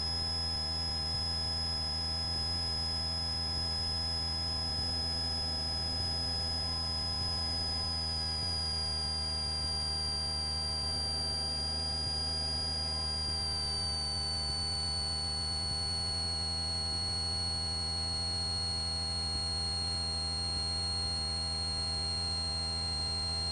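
Steady electrical whine and hum on the cockpit intercom audio: several thin tones at once over a low hum. The highest tones slide a little lower in pitch between about 8 and 14 seconds in, then hold.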